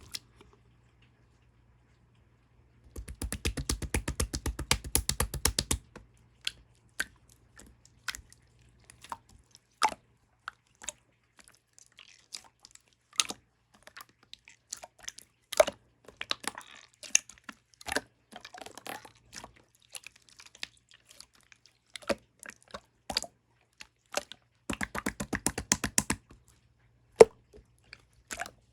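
Clear slime being played with by hand: sticky clicks, pops and squishes. Twice, about three seconds in and again near the end, it is worked fast, giving a quick even run of popping that lasts a couple of seconds.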